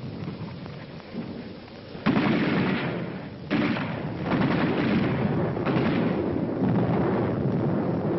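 Battle sounds on an old, narrow-band film soundtrack: a run of heavy rumbling explosions over a steady hiss. The blasts start suddenly about two seconds in, again at about three and a half seconds, and near six seconds, and each rumbles on as it fades.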